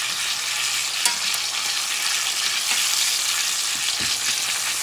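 Bison porterhouse steak sizzling steadily in foaming butter in a cast iron skillet while a spoon bastes it. There are a couple of light clicks of the spoon against the pan.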